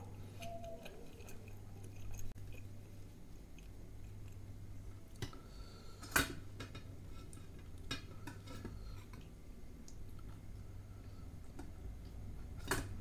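Close-up eating sounds: chewing, and fingers working a piece of kulcha through curry in a steel bowl, with small scattered clicks and two sharp clicks of steel dishes, about six seconds in and near the end.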